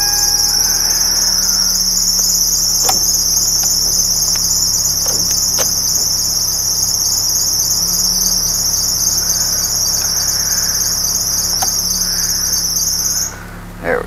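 Loud, steady, high buzz of a cicada that cuts off suddenly near the end, with a few faint clicks.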